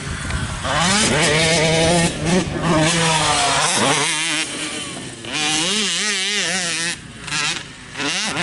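Racing ATV (quad) engines revving hard, the pitch climbing and dropping again and again with the throttle as they jump and race the dirt track.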